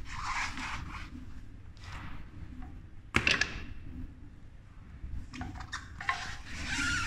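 Handling noise as a fat-tyre e-bike wheel with its hub motor is turned over and laid on a hard floor: rustling rubs of tyre and hands, a sharp knock about three seconds in, and a few light clicks near the end.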